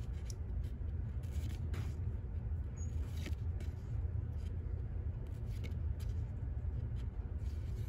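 Glossy trading cards being slid off the front of a hand-held stack one at a time, giving faint soft slides and ticks, over a steady low background rumble.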